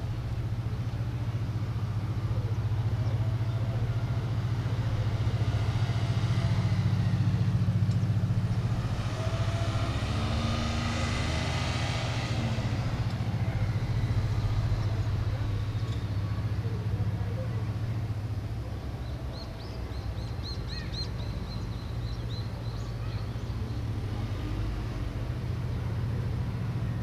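Steady low mechanical hum, with a road vehicle passing close by about ten seconds in, its sound swelling and then fading. A short run of high chirps follows about twenty seconds in.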